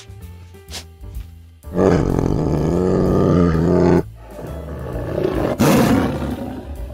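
A large animal calling loudly twice over background music: first a long pitched call lasting about two seconds, then a shorter, rougher one.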